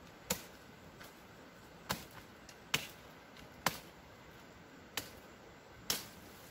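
A blade chopping on wood: six sharp chops at an uneven pace, roughly one a second.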